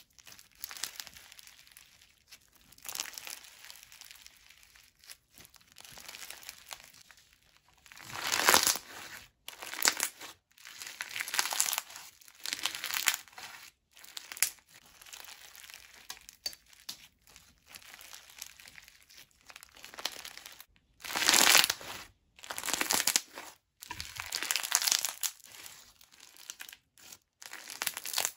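Fishbowl bead slime being squeezed and pressed by hand, the plastic beads crunching and crackling in repeated bursts of a second or two with short quieter breaks between.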